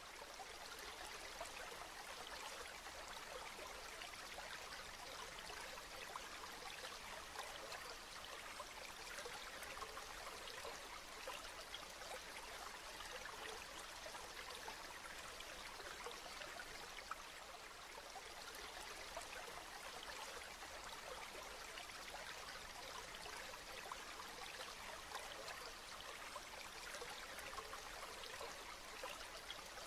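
Steady rain falling: an even hiss dense with fine drop ticks, without let-up.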